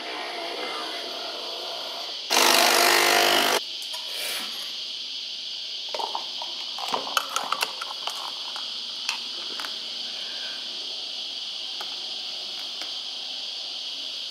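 Capsule coffee machine's pump buzzing loudly for about a second, a little over two seconds in, as it finishes the brew. Later a few light clinks and knocks of a steel milk jug, and frothed milk being poured into the cup.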